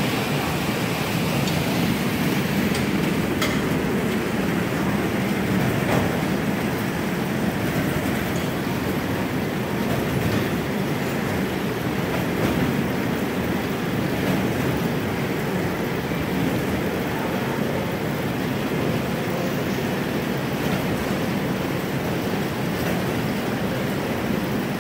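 Schrauwen bare-root tree grading machine running: a steady mechanical rumble and rattle from its conveyor and tree grippers, with a few sharp clicks.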